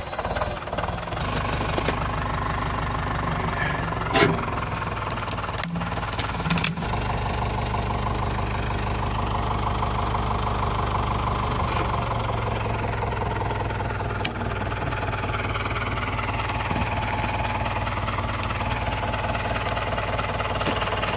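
Compact tractor engine running steadily, its note shifting a few times. A sharp clack about four seconds in and a smaller one a couple of seconds later.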